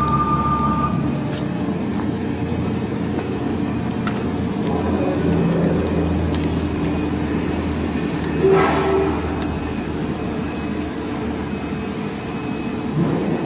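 CNC router's axis motors running as the machine returns all axes to home, a steady mechanical hum with whining tones. A higher steady tone cuts off about a second in.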